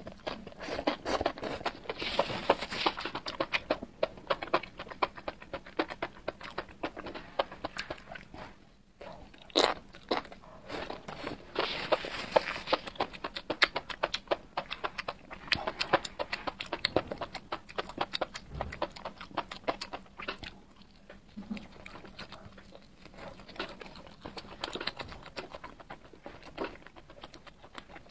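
Close-up eating sounds: crunching and chewing crisp, spice-coated fried enoki mushrooms and skewered foods, with dense crackling bites and wet mouth sounds. There is a short pause about nine seconds in.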